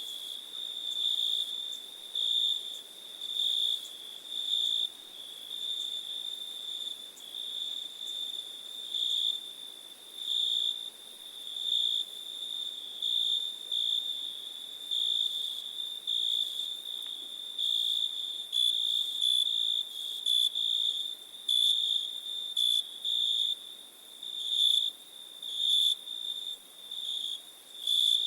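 Crickets chirping in a summer night chorus: a continuous high trill that swells and fades every second or so.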